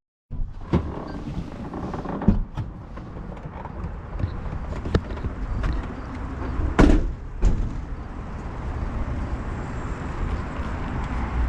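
A steady low rumble with a handful of sharp knocks and thumps scattered through it, the loudest about seven seconds in.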